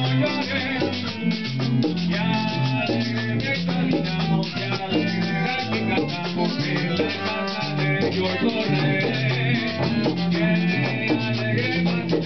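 Holiday parranda song: a man sings through a microphone over a güiro scraped in a steady rhythm and strummed plucked strings.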